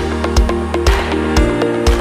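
Electronic background music with a steady beat, about two beats a second, over held notes.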